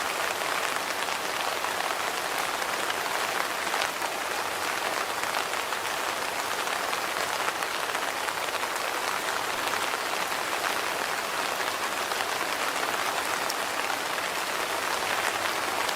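Steady rain falling on a surface: an even hiss of dense, fine drop impacts that holds constant.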